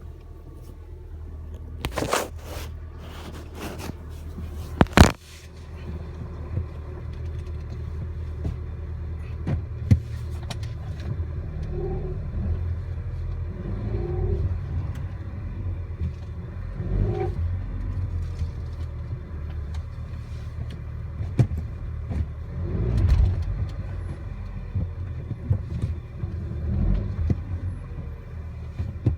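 A 2009 VW Bora GLI's 2.0 TSI four-cylinder engine runs at a low steady hum. A few sharp clicks and knocks come in the first five seconds. Several times after that, a rumbling, grinding noise rises as the clutch is let out, which the owner describes as metal rubbing on metal when releasing the clutch in reverse and first gear.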